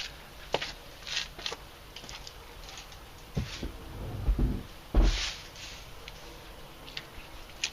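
Plastic car door trim panel being picked up and handled: scattered light knocks and clicks, with a couple of heavier thumps about four and five seconds in.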